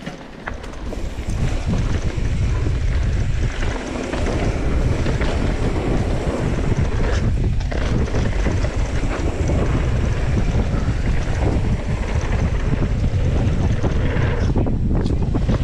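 Wind buffeting the microphone of a bike-mounted action camera as a mountain bike rolls at speed down a dirt trail, with tyre rumble and small rattles from the bike. The rush builds over the first couple of seconds as the bike picks up speed, then holds steady.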